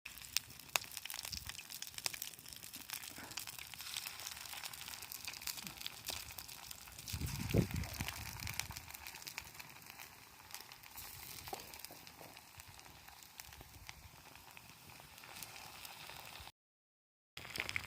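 Vegetables deep-frying in hot oil: a steady sizzle with many small crackles and pops. A dull low thump comes about seven seconds in.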